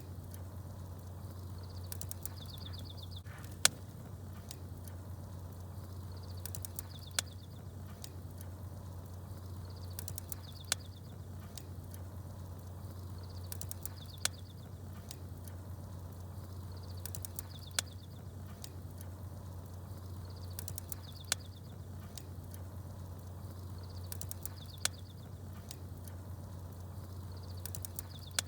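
Campfire crackling with small birds chirping, over a steady low hum. The same short stretch repeats about every three and a half seconds, each time with one sharp pop from the fire followed by a brief burst of high chirps, so the ambience is looped.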